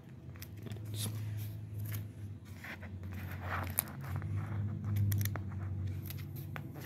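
Stiff paper postcards handled and flipped through by hand: a run of short rustles, slides and taps, the loudest rustle about halfway through, over a low steady hum.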